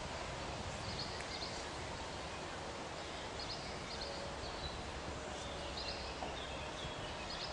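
Steady outdoor background noise with faint, short, high chirps now and then.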